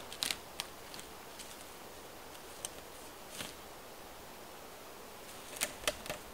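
Footsteps on a dry forest floor of pine needles and dead twigs: scattered snaps and crackles. Near the end, three louder twig snaps come close together as the walker steps in among the branches of a fallen pine.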